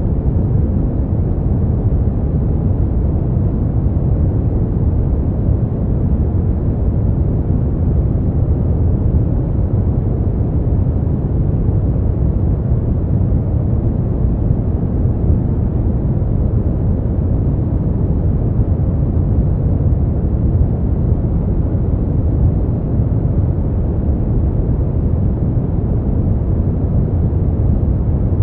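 Smoothed brown noise: a steady, even rumbling hiss, deep and dark, with its weight in the bass and almost no treble.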